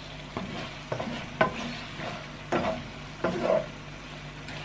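Wooden spatula stirring and scraping sautéed bitter melon, pork and egg in a nonstick frying pan, about five uneven strokes, over a steady sizzle of frying.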